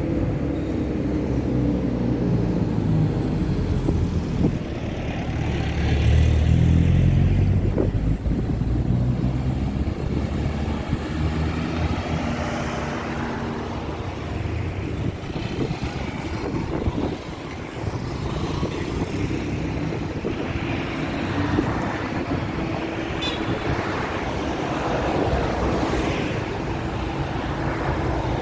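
Road traffic: cars and trucks passing, their engine and tyre noise swelling and fading as each goes by, loudest about six seconds in. A brief high squeak comes about three seconds in.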